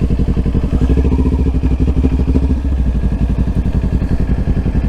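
Motorcycle engine running steadily at low speed, its firing pulses making a fast, even beat.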